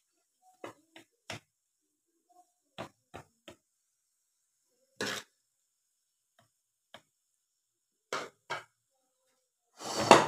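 A serving spoon knocking and scraping against a plate as thick curry is served: short separate clicks and scrapes with silence between, the loudest and longest scrape near the end.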